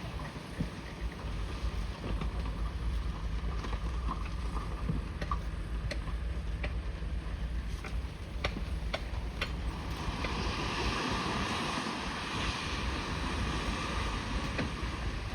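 Bulldozer's diesel engine running with a steady low rumble, with scattered sharp clicks and knocks through the middle and a hiss that grows in the second half.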